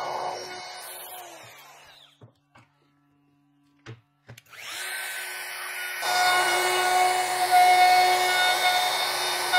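Festool plunge router (Oberfräse) winding down and stopping. A few light clicks and knocks follow in the pause. Then the router starts up again with a rising whine and runs steadily, getting clearly louder from about six seconds in as it cuts the juice groove into the oak board.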